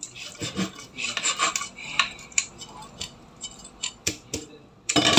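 Meat cleaver cutting a raw whole chicken open along the back on a bamboo cutting board: irregular knocks and clicks of the blade with scraping. A louder noise rises right at the end.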